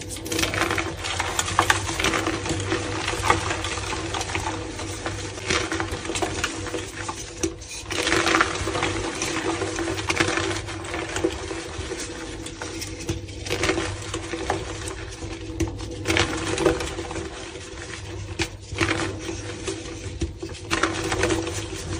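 Reformed gym chalk crushed and squeezed by hand: dense, continuous crunching and crackling as the compressed blocks break up into soft powder.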